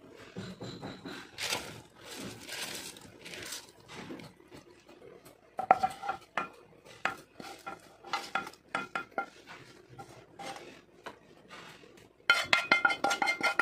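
Rice grains poured into boiling water in a pressure cooker, a soft rustling hiss. From about halfway, a spatula knocks and scrapes against a pan, each strike making the pan ring, becoming rapid clattering near the end as scrambled egg is scraped out into the cooker.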